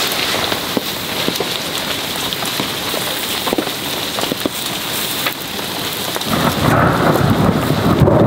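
Heavy rain falling in a dense patter of drops. About six seconds in, a low rumble of thunder comes in and grows louder.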